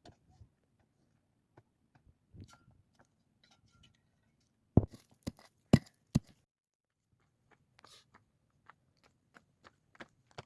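Scattered crunches and clicks, with several sharp, loud knocks in quick succession about halfway through.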